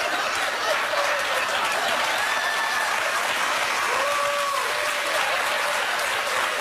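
Studio audience applauding steadily, with a couple of voices briefly calling out over the clapping.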